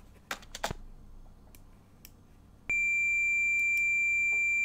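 Two soft clicks, then, a little over halfway through, a steady, extremely high-pitched beep starts abruptly and holds. The beep comes from the ZX Spectrum's one-bit beeper speaker, emulated, with the speaker bit toggled by a very short delay loop (300) to give a square-wave tone.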